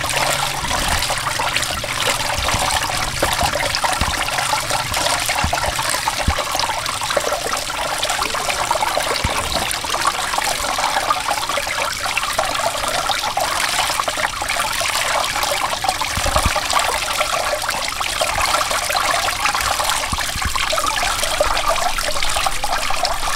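A steady stream of running water splashing onto cubes of peeled aloe vera gel in a plastic colander while a hand rubs them, rinsing the slime off the gel.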